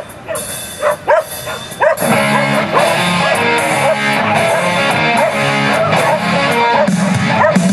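A dog gives a few short excited barks, then guitar-led music starts about two seconds in and plays steadily.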